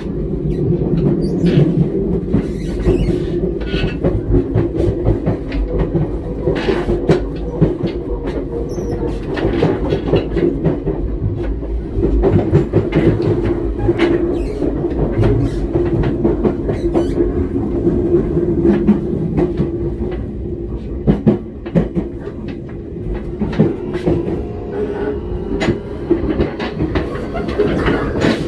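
Nankai 8300 series electric train running, heard from inside the cab at the coupling with a 12000 series set: a steady running drone and rumble, with wheels clicking over rail joints.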